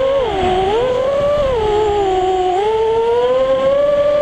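FPV quadcopter's brushless motors and propellers whining on a 3S LiPo battery, heard from the onboard camera. The pitch rises and falls with the throttle: a sharp dip about half a second in, another longer dip around two seconds in, then it climbs and holds steady near the end.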